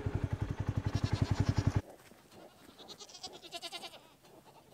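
A Polaris Ranger side-by-side's engine running with a fast, even pulse while goats bleat over it. Just under two seconds in, the engine sound stops abruptly and only goats bleating faintly remain.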